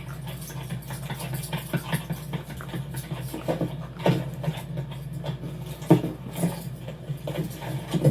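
Animated-film sound effects: a steady low machine hum with irregular knocks and clatters over it, the loudest about six seconds in.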